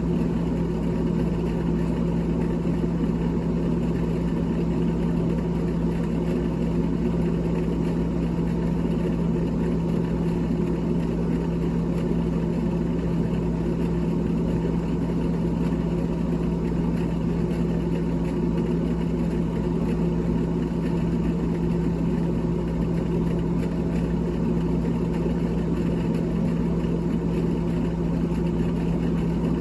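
GE GTH18XCTZRBB refrigerator's freezer fan motor running with a steady hum, one strong low tone over an even whir.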